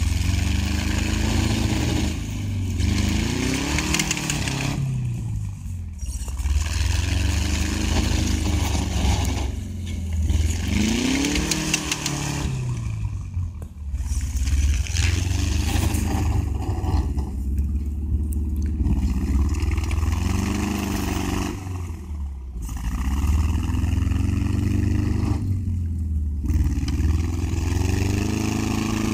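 Engine of a tracked snow vehicle revving up and falling back again and again as it churns through deep snow, with a brief drop in revs about every four to five seconds.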